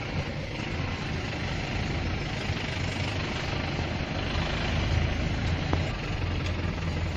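Steady rain, an even hiss, with a low continuous rumble underneath and a few faint ticks.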